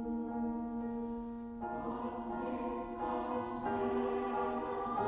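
Choral music: a choir singing slow, sustained chords that change every second or so.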